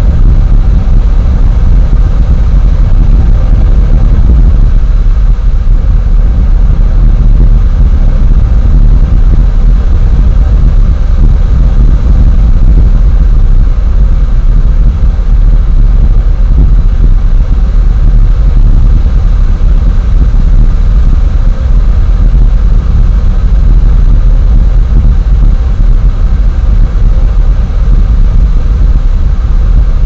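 Loud, steady low rumble of wind buffeting an outdoor nest camera's microphone, with no breaks.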